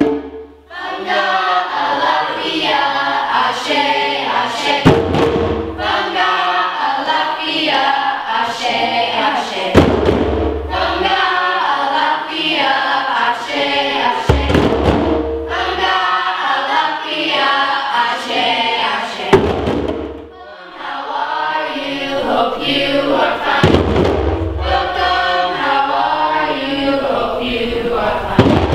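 A group of children chanting loudly in unison to djembe drumming, with a deep bass stroke on the drums about every five seconds.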